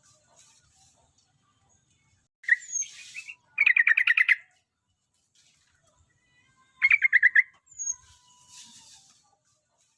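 Yellow-vented bulbul (trucukan) singing: two short bursts of quick, bubbling notes, one about three and a half seconds in and one about seven seconds in, with softer chirps and a brief rustle around them.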